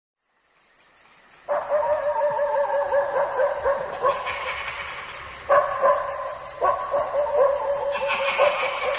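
Werewolf-pack sound effect: several dog-like calls, howls and yelps, overlapping in a chorus. It fades in over the first second and a half, and new calls start about five and a half and six and a half seconds in.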